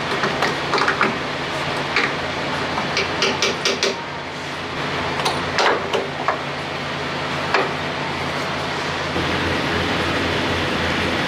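Sharp clicks and knocks of a hand working a plastic filler cap on a semi truck's tank, over a steady low mechanical hum. The hum gets louder about nine seconds in.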